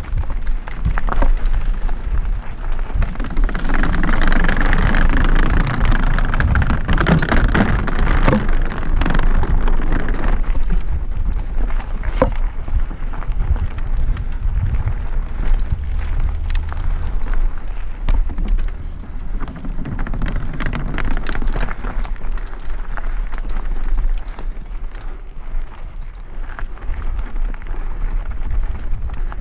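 Mountain bike riding fast down a loose stony trail: tyres crunching over gravel, with frequent sharp rattles and knocks from the bike, and wind rumbling on the microphone.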